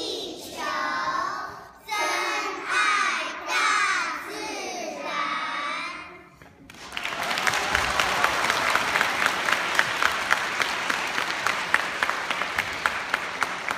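Young children singing together in short phrases with no instrumental backing, then an audience applauding from about seven seconds in.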